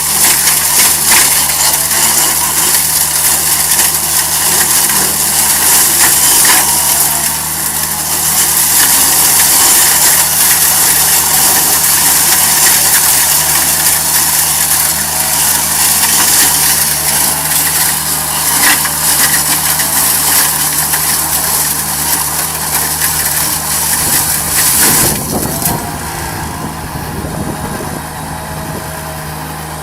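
A machine's engine running steadily with a low hum and a loud hiss over it; the hiss drops away about 25 seconds in while the engine keeps running.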